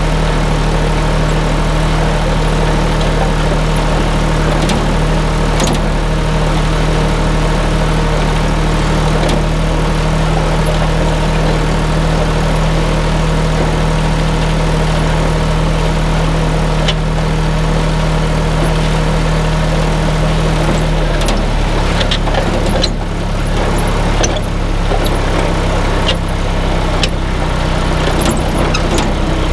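Tractor engine running steadily while pulling a farm wagon. Its note shifts about two-thirds of the way through, and several metallic knocks and clatters come near the end.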